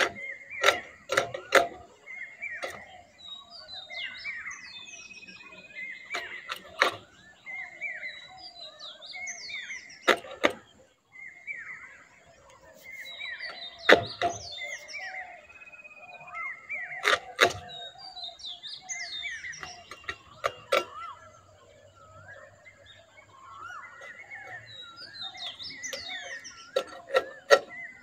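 Sharp, irregular scraping clicks of a whole rohu fish being drawn against the edge of a boti blade to scale and trim it, often in quick pairs. Birds chirp throughout.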